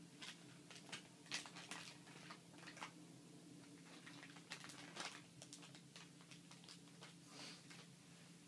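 Faint scattered clicks and light taps over a steady low electrical hum.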